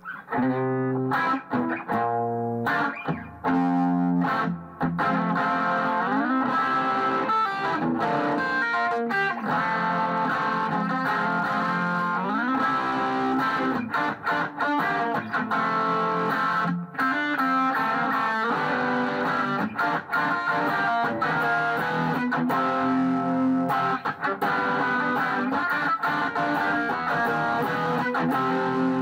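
Electric guitar played through a Marshall Vintage Modern 2466 100-watt valve head on its blue, low dynamic range channel, into a 2x12 cabinet loaded with two Celestion Greenback speakers, with reverb added. The guitar is a Les Paul with Lollar P-90 pickups. It plays a continuous lead passage with string bends and slides.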